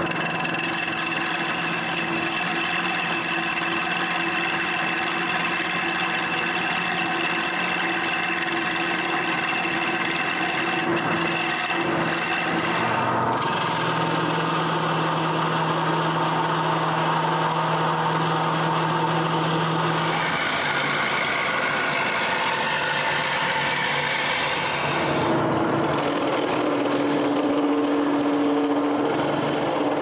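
Wood lathe running while hand-held turning tools cut into a spinning cherry post, giving a steady hiss of cutting over the motor hum. The pitch of the cut shifts a few times as the tool moves to a new spot.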